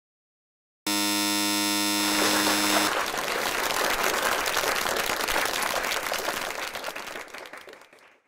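A steady, buzzy electronic tone like a theatre's opening buzzer sounds for about two seconds. A dense crackling noise follows and slowly fades away, a sound effect laid under stage curtains opening.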